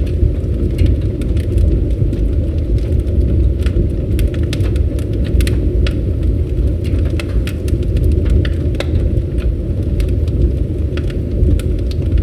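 Campfire burning: a steady low rumble of the fire with frequent sharp crackles and pops from the wood.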